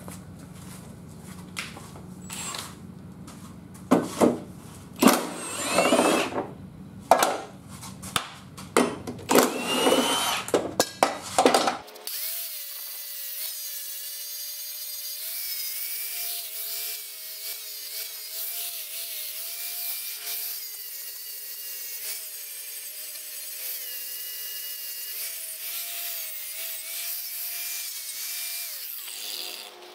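Loud, irregular clatters and short bursts of noise for the first twelve or so seconds. Then an electric angle grinder sharpening a lawn mower blade clamped in a vise: a steady motor whine that wavers in pitch as the disc bites, over a hissing grind.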